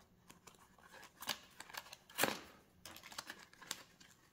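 Clear plastic packaging of a squid jig being opened by hand: scattered plastic clicks and crinkles, the loudest about two seconds in.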